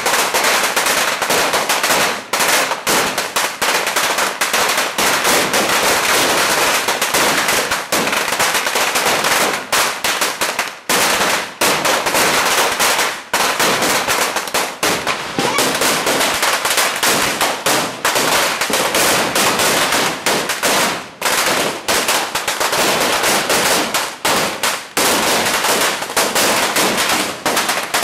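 Firecrackers and fireworks going off in a dense, continuous crackle of rapid pops, with only brief momentary lulls.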